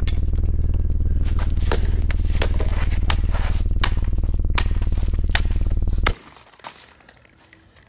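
A small cylindrical device lying on concrete gives out a loud, steady low buzzing drone while it is hit repeatedly with a hammer. The drone cuts off suddenly about six seconds in as the device is smashed.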